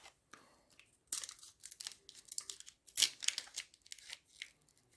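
Trading card pack wrapper being crinkled and torn open by hand, in irregular crackling bursts, the loudest about three seconds in; the pack is tough to get open.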